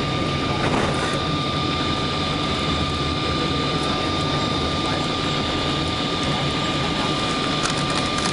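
Cabin noise of a Boeing 777-200 on its landing rollout: a steady, even rumble of engines, airflow and runway roll, with a thin steady whine over it.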